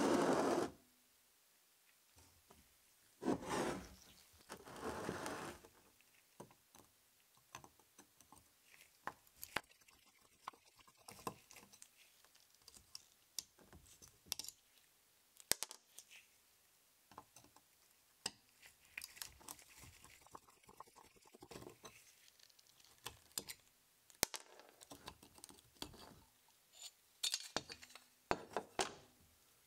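Screwdriver working screws out of a metal tripod pan-tilt head, with light metallic clicks, ticks and small scrapes of the parts being handled. Two louder noises, each about a second long, come about three and five seconds in.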